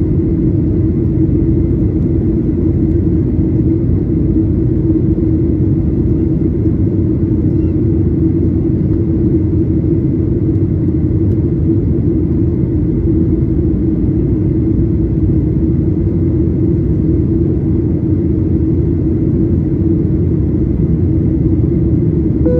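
Steady drone of a Boeing 737-800's CFM56-7B engines and rushing air, heard from inside the cabin during the climb after takeoff, with a steady low hum running through it.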